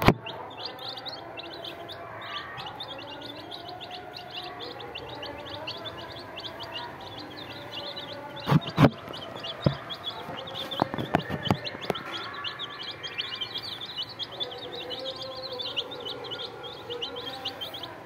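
A brood of domestic chicks peeping continuously, many short high chirps overlapping. A few sharp knocks stand out about halfway through.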